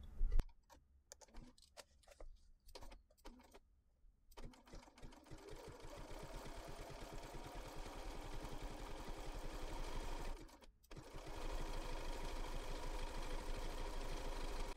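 BERNINA B475 sewing machine stitching a fringe stitch with a very short stitch length, a fast, even needle rhythm. A few faint clicks come first, the machine starts about four seconds in, stops briefly about ten seconds in, then runs again.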